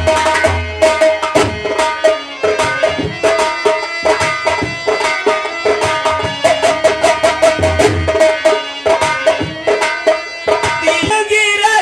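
Instrumental interlude of a folk song: rapid hand-drum strokes in a steady rhythm under a sustained melody line.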